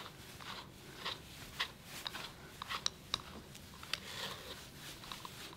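Slicker brush raked through an American Cocker Spaniel puppy's coat: a series of faint, short scratchy strokes at an uneven pace.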